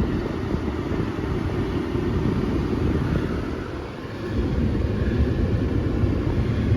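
2007 Dodge Nitro's 3.7-litre V6 idling with the freshly recharged air conditioning running, heard as an uneven low rumble that dips briefly about four seconds in.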